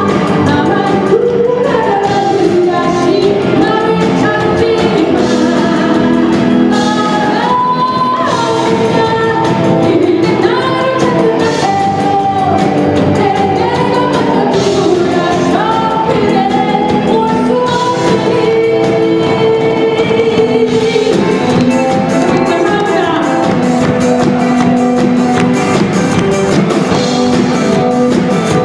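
Live band playing a pop song: a woman sings the lead over electric guitars, bass, keyboard and drum kit. The cymbals get busier about two-thirds of the way through.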